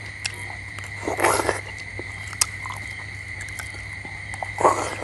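Balut eating sounds: two short slurps, one about a second in and one near the end, with small scattered clicks of eggshell being cracked and peeled. A steady high-pitched tone and a low hum run underneath.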